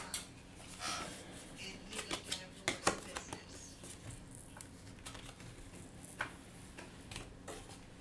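Light, irregular clicks and taps of small metal repair tools against a Samsung Galaxy Tab 4's glass and plastic frame as the broken digitizer is pried off, with a cluster of quick clicks two to three seconds in and more near the end.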